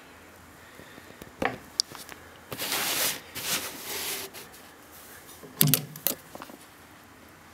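Handling at a sewing machine: a knock and a click, then cloth rustling for a second or two as it is slid under the presser foot, then a few sharp clacks. The machine is not yet running.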